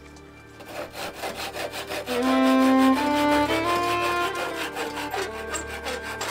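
Pull saw cutting across a wooden board in quick, even strokes, several a second. Background string music plays over it, its held notes loudest around the middle.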